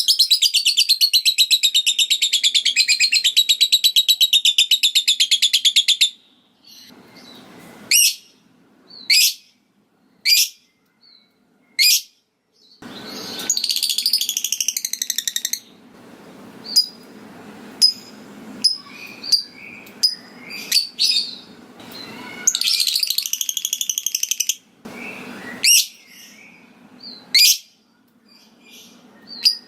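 Lovebird singing: a long, rapid chattering trill for about six seconds, then sharp single chirps broken by two shorter chattering runs.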